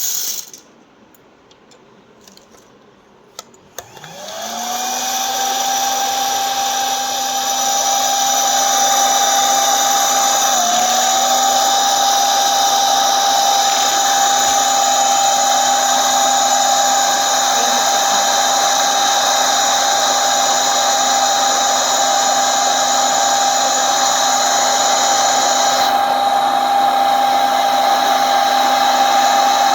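Small electric popcorn machine switched on after a couple of clicks about three and a half seconds in. Its motor spins up with a rising whine, then runs steadily with a fan-like whirr.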